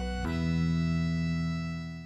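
Background music ending on a held chord: a new chord comes in about a quarter second in and is sustained, beginning to fade near the end.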